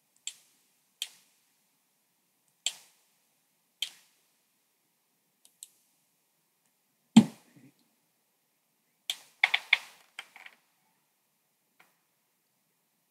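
Computer mouse and keyboard clicks: single sharp clicks about every second at first, a louder dull thump about seven seconds in, then a quick run of clicks around nine to ten seconds.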